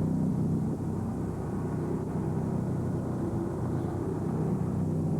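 Small fishing boat's engine running steadily at low speed, a constant low hum with an even pitch as the boat chugs slowly along.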